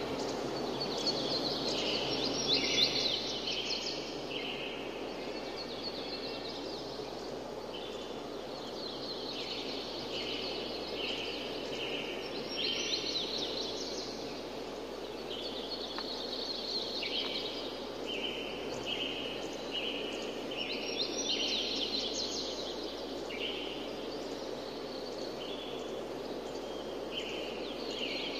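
Steady rushing like running water, with a bird singing: a run of quick high chirping notes repeats every eight seconds or so.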